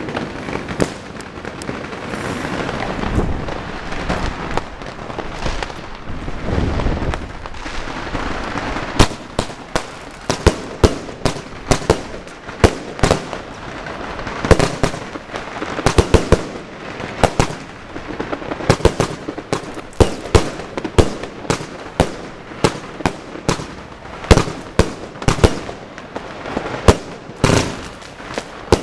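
Fireworks going off close by: hissing and crackling for the first several seconds, then sharp bangs in quick succession, several a second.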